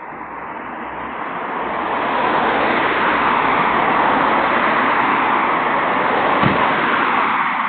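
Car rolling past close by: tyre and road noise swells over the first couple of seconds, holds, and eases near the end, with no clear engine note. One short thud about six and a half seconds in.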